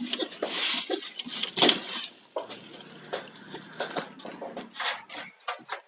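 Irregular clicks and clinks of small hard objects being handled, loudest and busiest in the first two seconds.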